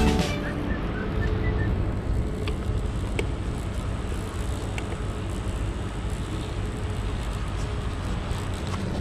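Steady low rumble of outdoor background noise, with two faint clicks a few seconds in.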